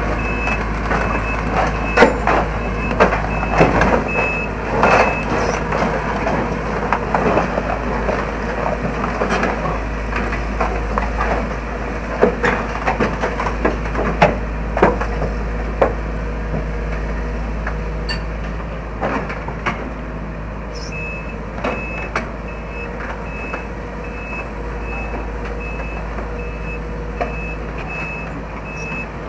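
CASE CX210 crawler excavator running and tracking over steel ramp plates, its track shoes clanking and knocking against the steel through the first half. A travel alarm beeps in a steady repeating pattern, plainest over the last several seconds.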